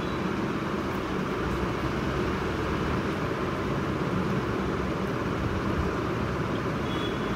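Steady, even whooshing background noise with no distinct events.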